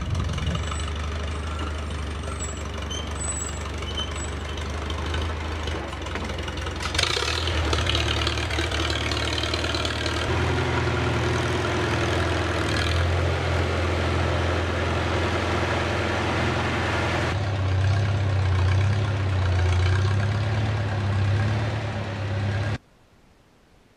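Farmall Super A tractor's four-cylinder petrol engine running steadily while powering the old homemade backhoe. A brief rushing noise comes about seven seconds in, and the engine note changes twice, at about ten and seventeen seconds. The sound cuts off suddenly near the end.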